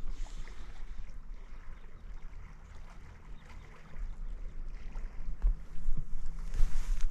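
Wind rumbling on the microphone, growing stronger about four seconds in, over a faint hiss of a shallow stream, with a few small knocks.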